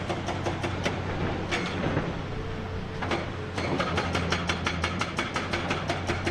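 Background music with a steady fast beat over a low hum; the beat drops out briefly near the middle.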